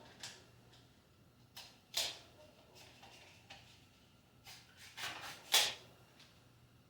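A few light clicks and knocks from small tools and parts being handled on a workbench, the loudest about two seconds in and again about five and a half seconds in, over a faint steady hum.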